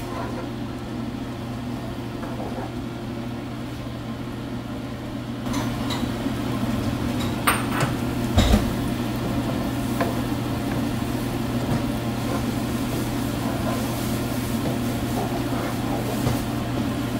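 Sliced onion and a stick of butter sizzling in a frying pan as the butter melts, stirred with a wooden spatula; the frying grows louder about five and a half seconds in, with a few sharp knocks of the spatula against the pan around the middle. A steady low hum runs underneath.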